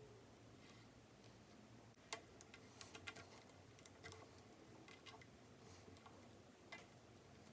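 Faint, irregular small clicks and taps from handling small device parts, starting about two seconds in and scattered through the rest.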